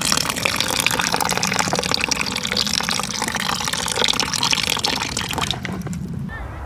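Water poured in a thin stream into a pan of stew, splashing into the broth. The pour stops about five and a half seconds in.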